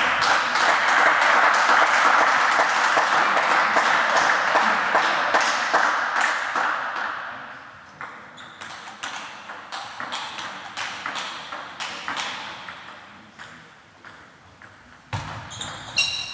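Table tennis balls clicking and pinging on tables and bats, from more than one game at once, with a new rally's quick clicks near the end. A loud, even rushing noise fills the first seven seconds or so and fades away.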